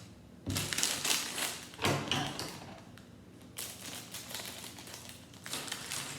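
Plastic LEGO parts bags crinkling and small LEGO pieces clicking and rattling as they are handled, in two stretches of a couple of seconds each.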